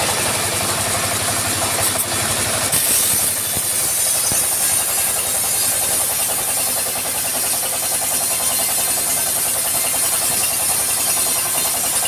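Engine-driven band-saw sawmill running steadily through a teak log, a fast regular engine chug under a loud high hiss from the blade. The hiss grows brighter about three seconds in.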